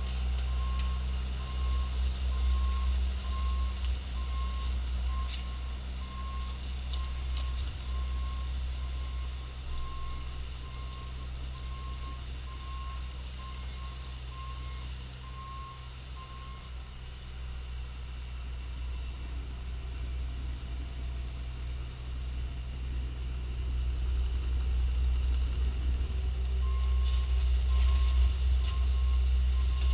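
Bobcat T870 compact track loader's diesel engine running steadily while its backup alarm beeps a little more than once a second as it reverses. The beeping stops about halfway through and starts again near the end as the engine grows louder.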